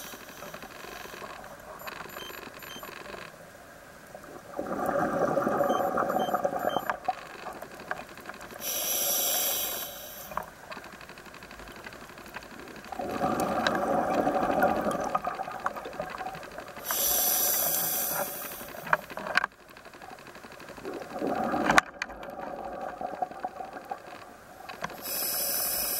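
Scuba diver breathing through a regulator underwater: a hissing inhale, then a longer rush of exhaled bubbles, repeating about every eight seconds. A few sharp clicks fall between the breaths.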